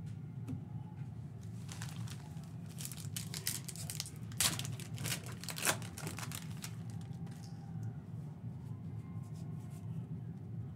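Plastic trading-card pack wrapper being torn open and crinkling in the hands as the cards are pulled out, in irregular crackles that are densest in the middle.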